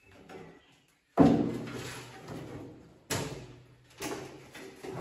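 A heavy slam about a second in that rings on for a moment, then two sharper knocks about two and three seconds later.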